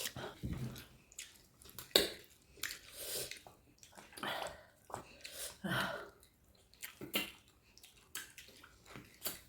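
Close-miked eating sounds: wet chewing and mouth smacks, with irregular soft clicks.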